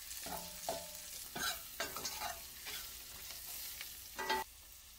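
Steel spoon stirring and scraping a stainless steel pan in which methi leaves, green chillies and red chilli powder fry in hot coconut oil, with a light sizzle. A few short ringing scrapes of metal on metal, the last near the end.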